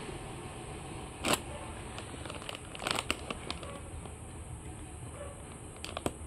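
A few short crackles and clicks from a small plastic milk bottle as a baby monkey handles it and sucks on it, over a steady low background hum. The loudest crackle comes about a second in, with a cluster around three seconds and another near the end.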